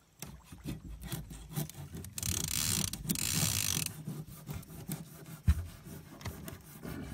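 A knife sawing and chopping through a piranha on a boat deck to make cut bait: irregular scraping strokes and knocks, with a longer, louder hiss about two seconds in and a sharp knock about five and a half seconds in.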